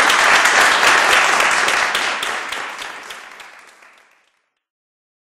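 Audience applauding, a dense patter of many hands clapping, which dies away about four seconds in.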